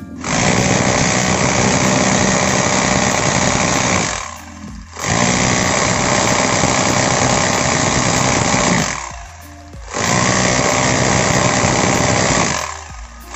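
Bosch GBH 2-26 DRE SDS rotary hammer drilling into a concrete block, running in spells broken by brief stops about four and nine seconds in and near the end. It runs loud but its hammer blows lack punch: a weak impact mechanism, which the owner says is typically caused by a worn piston seal, piston rod or armature gear.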